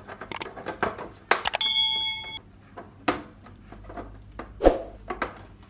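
Sharp plastic clicks and knocks as a TCL LED TV's inner panel is pushed down and snaps into its seat in the frame. A short ringing ding sounds about a second and a half in.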